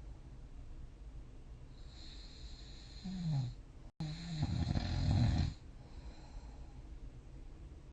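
A sleeping person snoring: quiet breaths, a short falling groan about three seconds in, then one loud, low snore lasting about a second and a half, followed by quiet breathing again.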